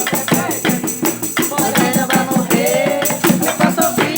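Informal group singing of a Brazilian gospel worship song over hand percussion struck in a quick, steady beat, about four strokes a second.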